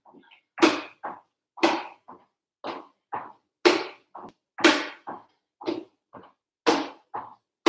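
Footsteps of shoes on bare wooden floorboards during side steps, a steady rhythm of about two knocks a second, alternating heavier and lighter.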